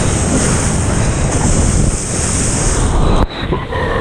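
Surfboard planing across the water: a steady rush and hiss of water and spray, with wind buffeting the microphone. It drops off abruptly about three seconds in.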